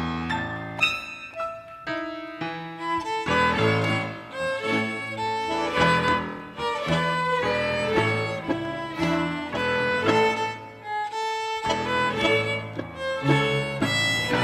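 Violin ensemble of teachers and students playing a piece with piano accompaniment, short separated notes in places alternating with held ones.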